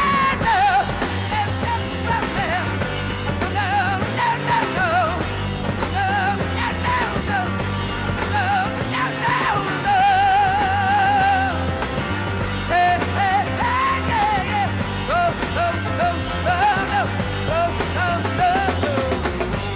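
Live hard rock from a three-piece band: a male singer singing and yelling in long, wavering held notes over electric guitar, bass guitar and drums.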